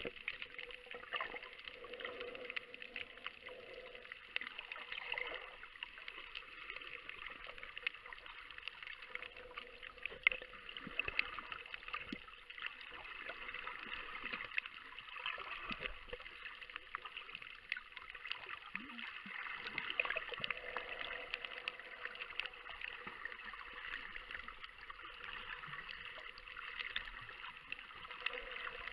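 Underwater ambience: a steady dense crackling hiss with a faint steady hum, and a few louder clicks.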